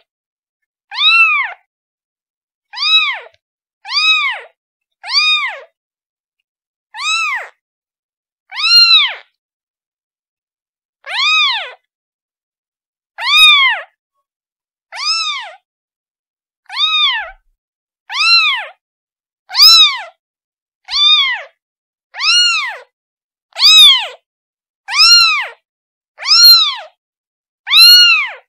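A kitten meowing over and over, calling for its mother: short, high, separate meows about one to one and a half seconds apart, each rising then falling in pitch.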